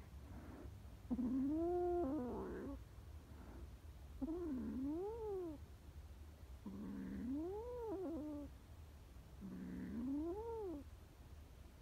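A scared stray kitten yowling defensively: four long wails, each rising and then falling in pitch, about every two and a half seconds.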